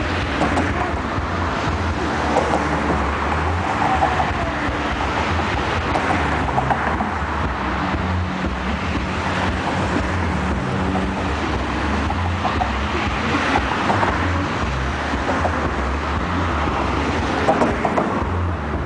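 Steady city traffic noise with a low rumble underneath.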